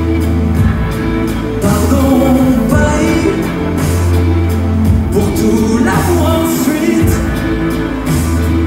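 Live band playing an instrumental passage: electric guitars over a sustained bass line, with a steady beat.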